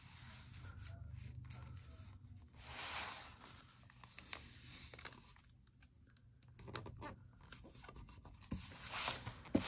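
Paper sticker being peeled from its backing sheet and rubbed down onto a planner page: soft rustling and scraping of paper under fingertips, loudest about three seconds in.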